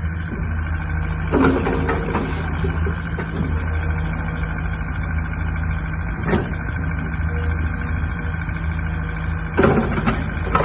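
JCB 86C midi excavator's diesel engine running steadily, with short louder mechanical noises about a second and a half in, around six seconds, and again near the end.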